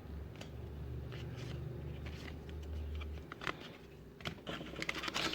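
Trading cards being handled and flipped, faint clicks and light rustling that get busier near the end, over a low hum that cuts off about three seconds in.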